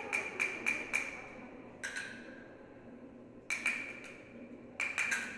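Hard, ringing objects struck by hand in irregular clusters, each tap ringing briefly at one high pitch: about five quick taps in the first second, one near two seconds, two around three and a half seconds, and a quick run near the end.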